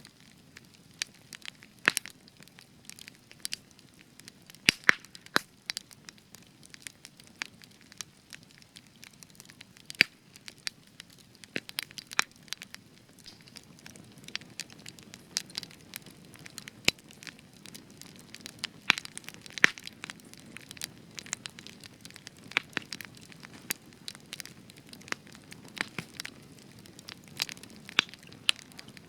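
Spruce wood burning in an open campfire, crackling with frequent sharp, irregular pops and snaps over a soft low rush of flame.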